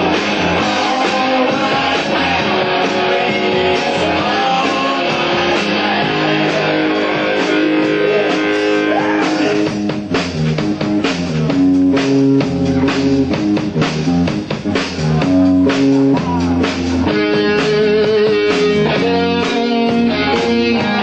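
Live rock band playing electric guitars, bass guitar and drum kit. About ten seconds in, the dense, sustained wash of guitar gives way to sharper, separate drum hits and chords.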